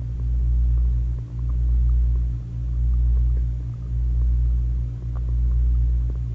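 Low underwater rumble with a steady hum, picked up by a camera submerged in a swimming pool. It swells and dips about every second and a quarter.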